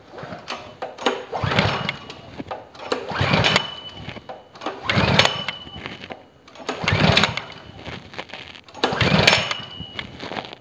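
Lifan KP230 8 hp single-cylinder four-stroke petrol engine being cranked in five short attempts about two seconds apart. It does not catch: this is its first start, with fuel just let through to the carburettor.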